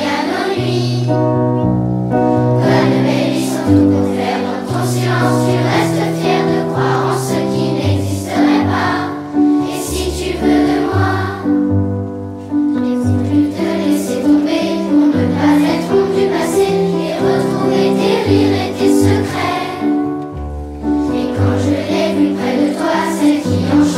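A children's school choir singing a song over an instrumental backing with a moving bass line and a steady drum beat.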